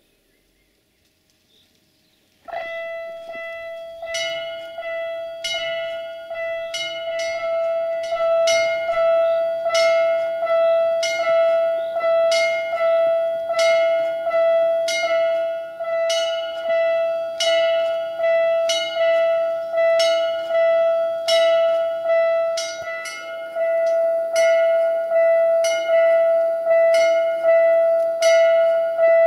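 Level-crossing warning bell ringing: one steady note struck over and over, about one and a half strikes a second, the ring carrying on between strikes. It starts suddenly about two and a half seconds in, warning of an approaching train.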